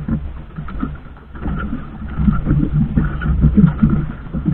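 Small outrigger fishing boat at sea: a steady low engine hum under irregular gusts of wind and water noise.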